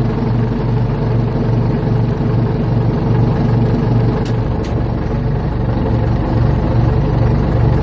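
Ford 755 backhoe engine running steadily at a constant speed, with two quick clicks about halfway through.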